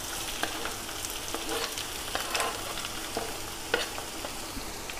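Chopped ginger and green chillies going into hot coconut oil in an iron kadai, frying with a steady sizzle and scattered crackles among the tempering of mustard seeds, dried red chillies and curry leaves, while a spoon scrapes them off a cutting board and stirs.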